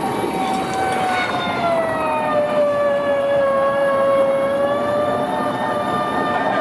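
Helicopter engine whine, one steady tone over a noisy rush, that sags in pitch about a second and a half in and then holds lower.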